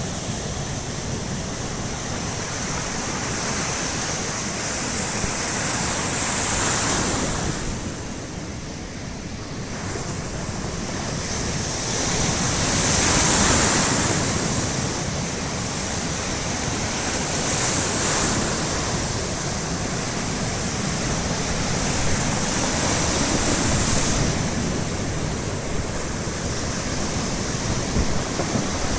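Baltic Sea surf: waves breaking on the shore in a steady wash that swells and falls back about every five or six seconds, with a low rumble of wind on the microphone.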